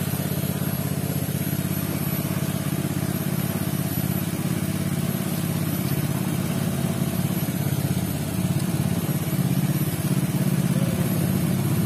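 Small Robin petrol engine running steadily at a constant speed, driving the pepper-washing setup.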